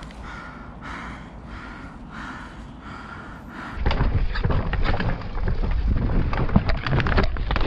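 Rapid heavy breathing, a breath about every half second, from a winded rider on the ground. About four seconds in it changes suddenly to the louder clatter of a full-suspension mountain bike (Vitus Sommet 29) ridden fast down a rooty dirt trail: tyres on dirt and roots, with a rattle of knocks and clicks from the chain and frame and a low rumble.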